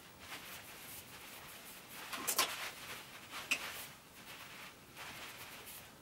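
Faint rustling of hair and the nylon salon cape as hair is parted with a comb, with two short clicks about two and a half and three and a half seconds in.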